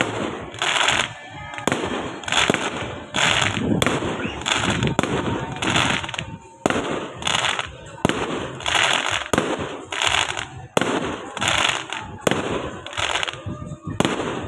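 Aerial fireworks going off in quick succession: repeated sharp bangs of shells bursting, one every second or two, with dense noise between them.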